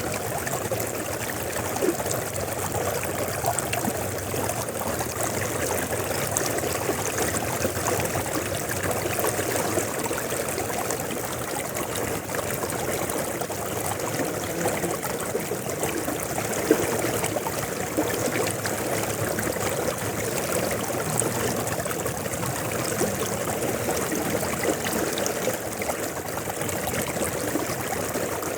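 A river flowing steadily, with a continuous rush of water and small splashes and gurgles.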